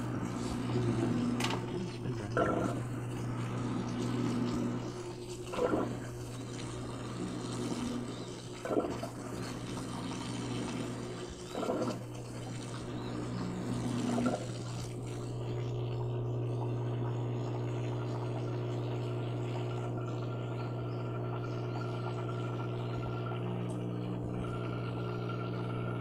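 Panda XPB45 twin-tub washing machine running: a steady motor hum with water moving in the tub. For about the first half it surges about every three seconds, then it settles into an even hum.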